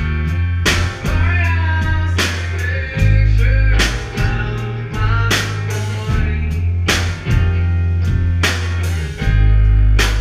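Rock band playing: electric guitar, bass guitar and drum kit, with a heavy, held bass line and regular cymbal crashes.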